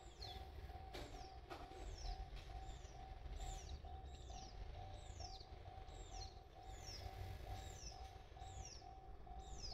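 Japanese level-crossing warning bell ringing steadily at about two strokes a second, the alarm for an approaching train. A high, falling chirp repeats about every half second alongside it, over a low rumble.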